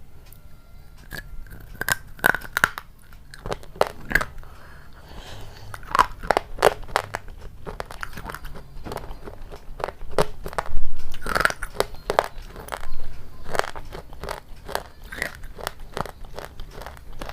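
A person biting and chewing crunchy food, with many sharp, irregular crunches; the loudest bite comes about two-thirds of the way in.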